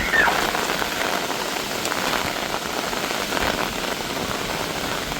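Heavy rain falling steadily, a continuous hiss with many small drops pattering on surfaces. Right at the start comes a brief, high, pitch-bending call.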